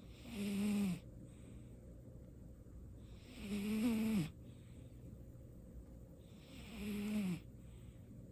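A sleeping cat snoring: three snores about three seconds apart, each about a second long with a low pitched tone that drops at its end, and soft breaths between them.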